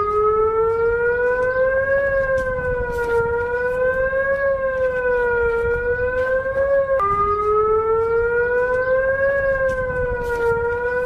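Siren sounding as an emergency alert alarm, its pitch slowly rising and falling about every two and a half seconds over a low rumble. About seven seconds in it drops suddenly back to its lower pitch and begins the rise again.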